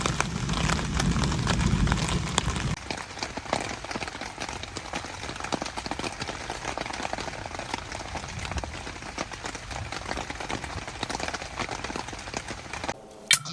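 Rain pattering, a dense run of fine drop clicks. A low rumble under it stops abruptly about two and a half seconds in.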